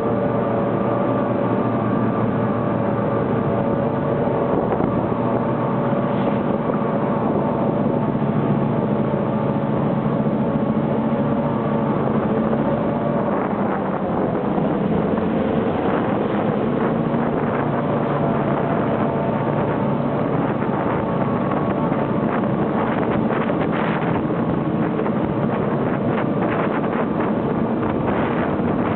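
EMD F10 diesel locomotives' 567C engines running hard at high revs as the train pulls out. Their steady stacked engine drone holds through, with wind buffeting the microphone.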